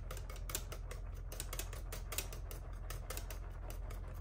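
Wire whisk beating thin crêpe batter in a glass bowl: steady rhythmic clicking of the wires against the glass, about four strokes a second.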